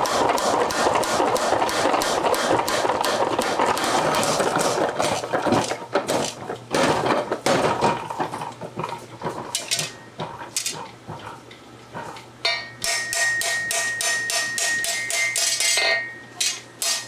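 Mechanical power hammer pounding a hot steel blade in rapid strokes, several a second, then slowing to spaced single blows. In the last few seconds a hand hammer taps the cooled blade on an anvil, each strike ringing.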